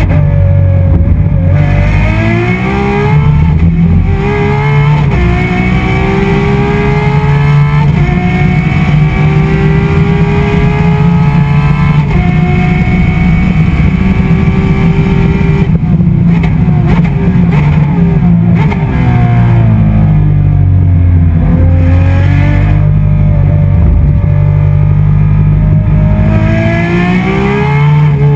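Ferrari 599XX Evo's V12 heard from inside the cabin under hard acceleration, its pitch climbing and dropping sharply at each upshift through the gears. Around the middle the revs fall in steps through downshifts, then climb again near the end.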